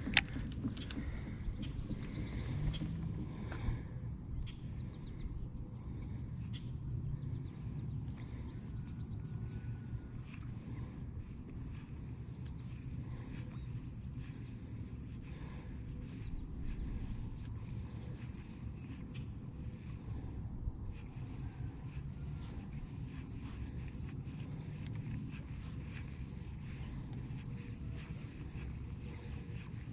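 Steady high-pitched drone of insects in the marsh, with a low rumble underneath.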